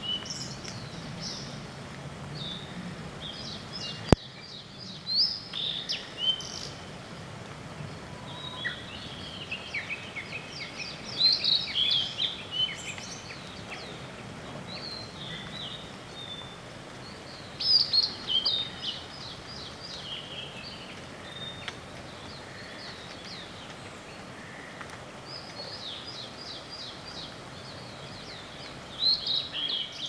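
Blue-and-white flycatcher singing: short phrases of quick, clear, high whistled notes, repeated every few seconds with pauses between, over a steady background hiss. A single sharp click sounds about four seconds in.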